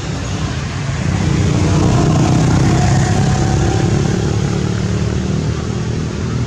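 A motor vehicle's engine running as it passes, growing louder about a second in and easing off toward the end.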